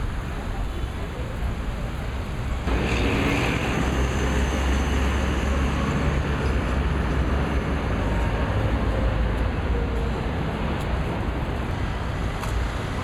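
City street traffic: cars running past on a busy road as a steady rumble, growing louder about three seconds in and staying so.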